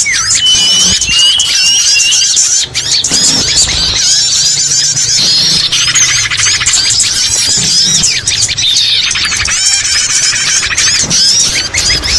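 Many small songbirds chirping and calling over one another in a dense, unbroken chorus of short high notes, with a fast buzzy trill about six seconds in. It is a bird-lure call recording, played to attract small birds.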